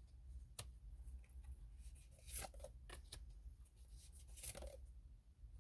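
Near silence with a low hum and a few faint, short rustles and light clicks, about four of them spread through the pause.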